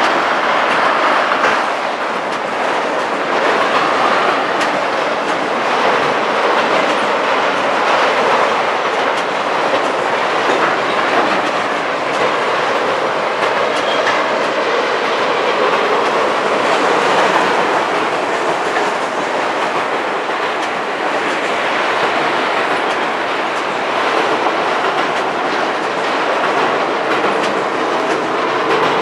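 Autorack freight cars rolling steadily past, a continuous rumble of steel wheels on rail with faint repeated clicks as the wheels cross the rail joints.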